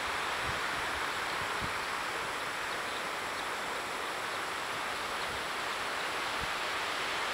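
A steady, even hiss of outdoor ambience with no distinct events.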